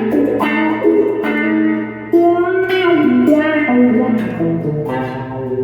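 Electric guitar with Fender Big Dipper pickups playing a run of single notes and short phrases, some bent up and down in pitch, through a Dunlop Cry Baby Mini (CBM95) wah pedal on its middle range setting into a full-tube amp.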